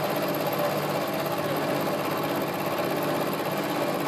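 Vertical milling machine running with a steady hum and a few held tones, its end mill taking a light half-millimetre peripheral cut along the side of a metal workpiece clamped in a vise as the table is fed slowly across.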